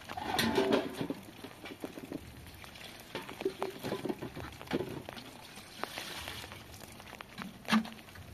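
Wash water splashing out of a tipped metal basin onto the ground, then wet clothes sloshing and squelching as they are rubbed by hand in the basin. A single sharp knock comes near the end.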